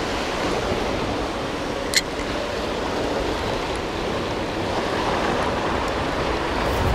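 Sea surf washing steadily against shoreline rocks, with a single sharp click about two seconds in.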